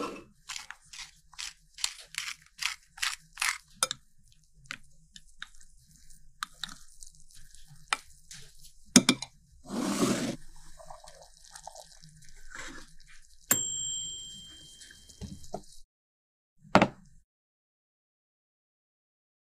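Kitchen food-preparation sounds: a run of short crunchy, squishy strokes about two a second, then scattered clicks and knocks. A brief high ringing tone comes a little past halfway, and near the end there is near silence broken by a single knock.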